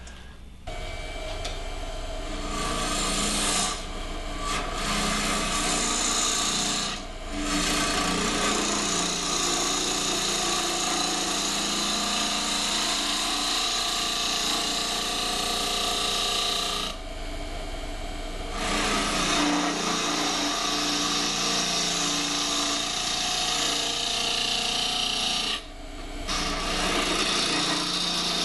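A gouge hollowing the end grain of an olive-wood box blank spinning on a lathe: a steady scraping cut over the motor's hum, broken by short gaps as the tool comes off the wood, about four times, the longest near the middle.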